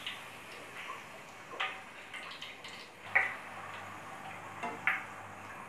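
Papri made from samosa pastry sheet frying in a wok of hot oil: a faint steady sizzle, broken by three or four sharp clicks, the loudest about three seconds in.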